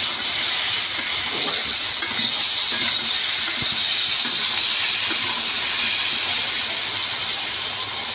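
Spiced goat-head meat and potatoes sizzling in hot oil in a steel kadai over a wood fire: a steady hiss, with the wooden spatula stirring the pieces.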